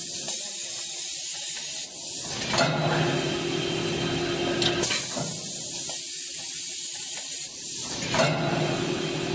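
Multi-lane automatic vertical packing machine running, with air hissing for about two to three seconds at a time, twice, as its pneumatic cylinders work. Between the hisses it hums steadily with a low tone, and there are a couple of sharp clicks.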